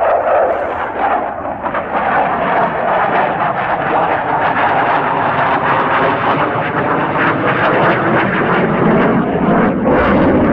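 Saab J35 Draken fighter's single afterburning turbojet heard in flight: a loud, continuous jet noise with a rough crackle running through it, growing slightly heavier in the low end near the end.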